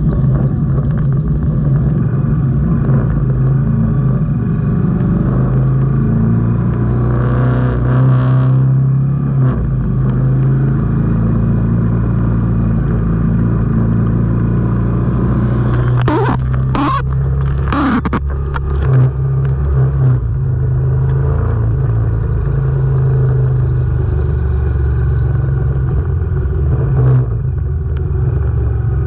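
Moto Guzzi V85 TT's air-cooled transverse V-twin engine running steadily at low parade speed, its pitch drifting up and down a little. A short cluster of sharp clicks or knocks comes a little past halfway.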